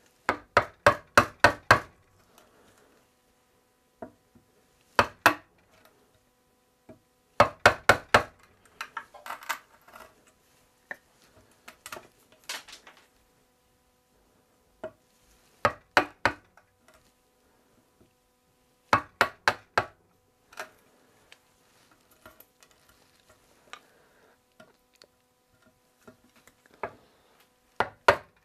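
Wood chisel driven down into a broken tenon stub in a chair-seat mortise by short runs of quick, sharp blows, splitting out the old glued-in wood. Between the runs come small cracks and scrapes as the chips break loose.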